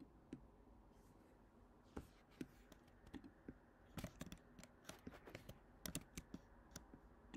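Faint, irregular small clicks and taps in a quiet room, coming thicker in the second half, from fingers handling a phone or a laptop's keys.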